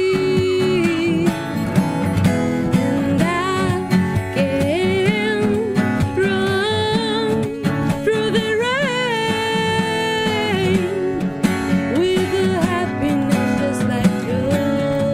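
A woman singing a slow melody, her notes sliding and wavering, over a strummed acoustic guitar.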